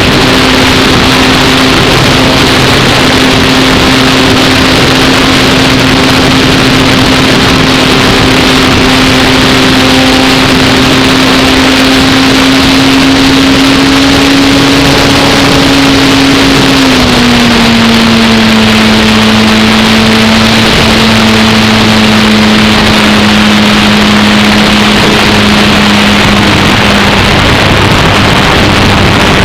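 Electric motor and propeller of an Apprentice S15e RC trainer plane, heard from a camera mounted on the plane in flight: a steady loud hum under heavy wind rush, its pitch dropping a little just past halfway.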